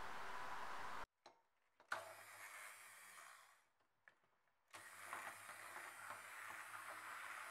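Immersion blender running in a bowl of chocolate ganache: a short burst about two seconds in, then a longer steady run of motor hum and whir from about five seconds on. A steady hiss fills the first second.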